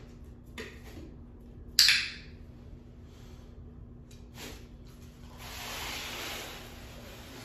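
A single sharp clack about two seconds in, then a drawn-out scraping hiss near the end as a small wooden board is slid across a hard floor.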